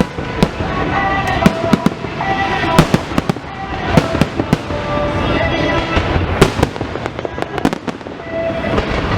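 Fireworks display: many sharp bangs and crackles in quick, irregular succession, some in tight clusters, over a steady background din.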